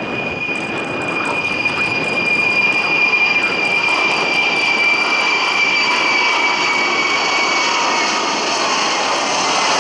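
Boeing 747-400 with four Pratt & Whitney PW4056 turbofans climbing out after takeoff: a loud, steady jet roar with a high whine that slowly falls in pitch.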